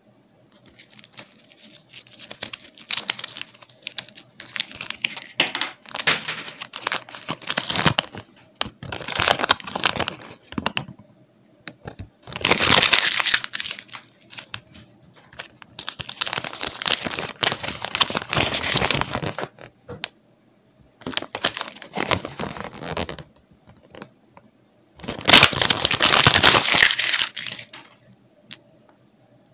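Crinkling and tearing of the small plastic wrappers around Kinder Surprise toy parts as they are unpacked by hand, in several bursts a few seconds long with short pauses between, with sharp clicks of handled plastic.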